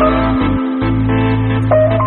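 Background music: sustained keyboard chords held over a steady bass note.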